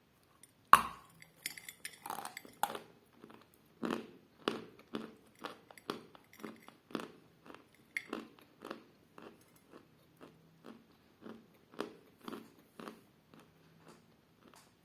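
A person bites into a piece of edible chalk with one loud crack, then chews it with a steady run of short crunches about twice a second that grow fainter as the chalk breaks down.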